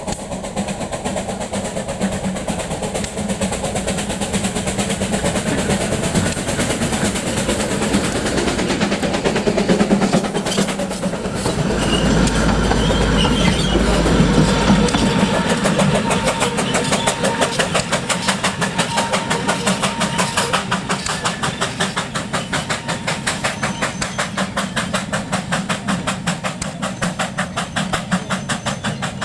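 A light railway train running along the track, with a fast, even clatter through the second half. A heavy low rumble rises briefly about halfway through.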